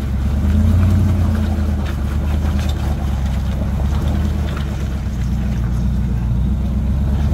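Off-road 4x4's engine running steadily under load, its revs swelling a little about a second in and easing off around five seconds.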